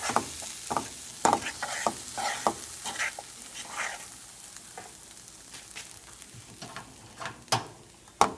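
Food sizzling in a frying pan while a utensil scrapes and stirs it, busy for the first few seconds and then slowing; two sharp knocks near the end.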